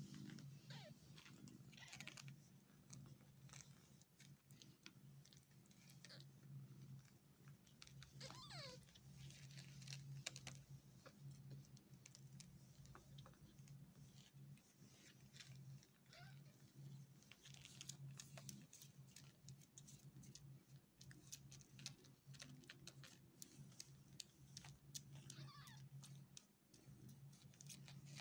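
Newborn kittens giving a few faint, short squeaky mews while nursing, with small soft clicks from suckling and shifting about halfway through, over a steady low hum.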